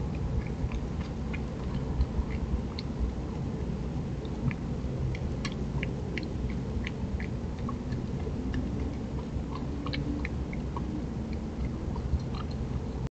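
Virginia opossum eating dry food from a bowl: scattered sharp crunches and clicks of chewing over a steady low rumbling background noise.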